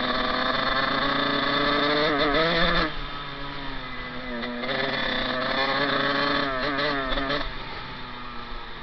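Dirt bike engine under way, revving up and holding for about three seconds, dropping back suddenly, then revving up again before easing off near the end.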